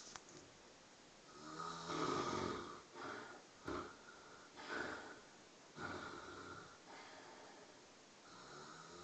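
A sleeping person snoring: a run of uneven snores, some long and some short, the longest and loudest about two seconds in.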